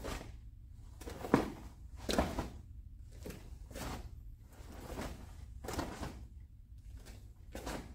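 Sharp swishes and snaps of a taekwondo uniform as blocks and punches are thrown, about eight in a row, the loudest a little over a second in.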